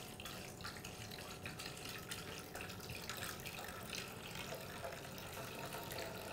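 White rice vinegar poured from a glass bottle in a thin, steady stream into a stainless steel bowl, faintly splashing and trickling as it is weighed out on a scale.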